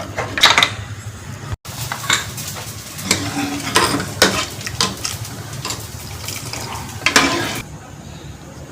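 A metal spoon stirring and scraping in a pan of cooking chicken salna, with irregular clinks over a frying sizzle. The stirring stops near the end.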